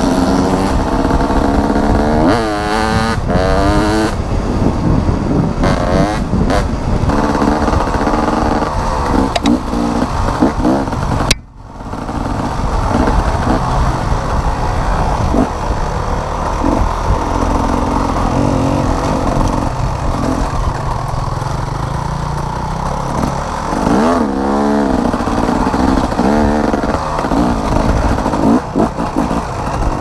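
Enduro dirt bike engine running close up while under way, its revs rising and falling several times. The sound drops out abruptly for a moment about eleven seconds in, then comes back.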